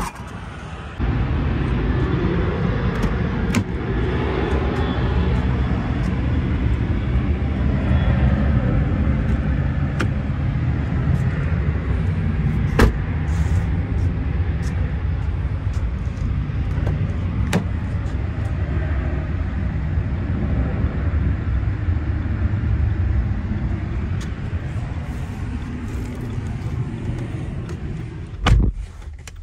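A 2021 Dodge Journey SXT's liftgate shuts with a sharp thump at the start, then a loud, steady low rumble runs while the car is walked around, with a few sharp clicks. Near the end a car door shuts with a heavy thud.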